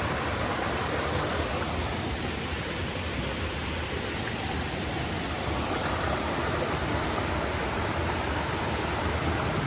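Steady rush of a waterfall, water pouring down over rocks in a constant even roar of noise.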